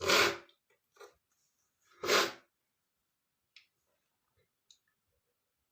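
A man sneezing twice, about two seconds apart, each a short loud burst, with a smaller burst between them; a couple of faint ticks follow.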